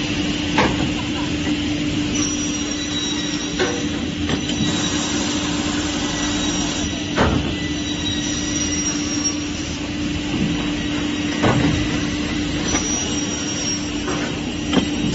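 Automatic aluminium window-profile cutting centre running: a steady machine hum, broken by several sharp knocks.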